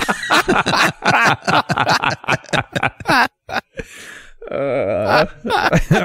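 Men laughing hard in quick pulses, with a breathy gasp about four seconds in and a wavering drawn-out laugh just after.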